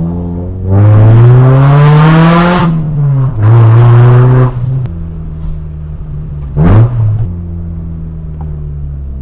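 Honda Civic EG's engine and stainless-steel exhaust under hard acceleration. The pitch climbs for about two seconds and drops at an upshift, the car pulls again for about a second, and a short sharp rev near 7 s gives way to a steady lower drone.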